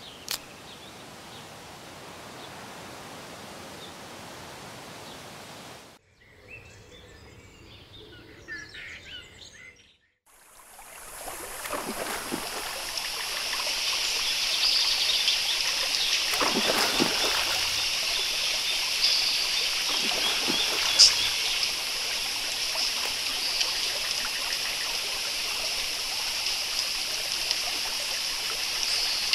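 Jungle ambience of running stream water and bird calls. It is softer in the first third, drops out briefly about ten seconds in, then comes back as a louder, dense, steady chorus of high calls over the water.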